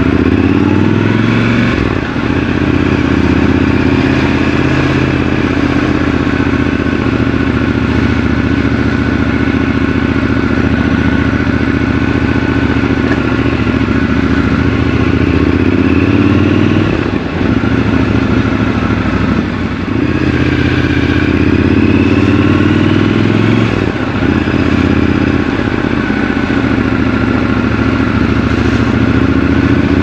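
Triumph Scrambler 1200 XC's 1200 cc parallel-twin engine running while the bike is ridden at city speed. The revs rise and fall several times as the throttle opens and closes and the gears change.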